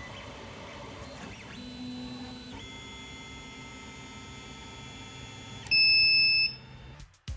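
3D printer running, its stepper motors whining in steady tones that jump in pitch now and then as the moves change. Near the end a loud, high electronic beep sounds for under a second.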